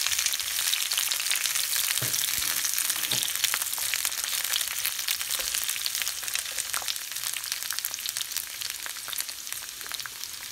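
Sliced ivy gourd (tindora) sizzling in hot oil in a nonstick frying pan, a dense crackling that slowly dies down as the oil takes the cold vegetables. A wooden spatula stirs them, with a couple of soft knocks against the pan about two and three seconds in.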